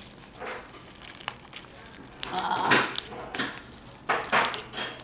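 Steamed king crab leg shell being cracked and pulled apart by hand in plastic gloves: a few irregular crunches and crackles with the crinkle of the gloves, loudest a little over halfway through.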